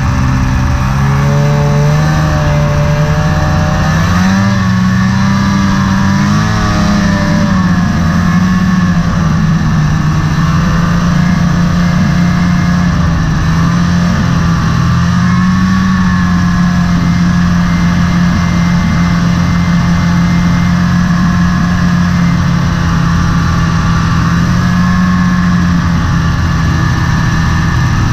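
Snowmobile engine running steadily at trail speed, its pitch rising and wavering with the throttle a few seconds in, then holding fairly even.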